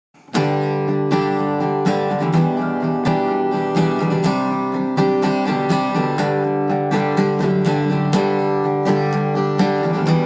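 Acoustic guitar strummed in a steady rhythm, starting suddenly just after the beginning: the song's instrumental intro, before any singing.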